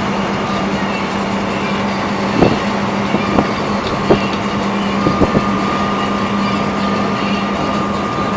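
Heavy truck running: a steady low engine hum under road and mechanical noise, with a steady higher whine from a few seconds in and a few short knocks or rattles.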